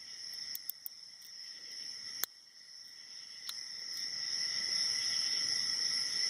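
Small metallic clicks of a hook pick and tension wrench working the security pins of an Abus 72/40 padlock, one sharper click about two seconds in, over a steady high-pitched background drone.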